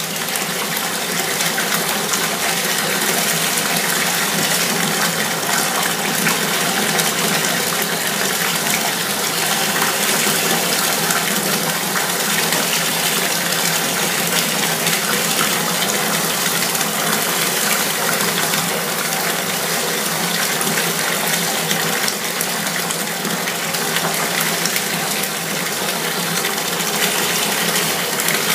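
Bath bomb fizzing quickly in bathwater, held just below the surface: a steady hiss of bubbles.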